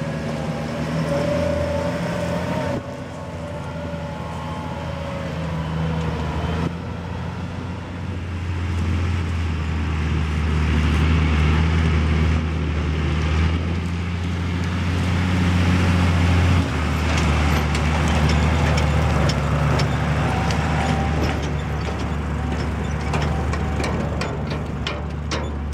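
Fendt tractors' diesel engines running steadily as they pull silage wagons across a maize field, a low drone. In the last several seconds a run of sharp clicks or rattles joins it.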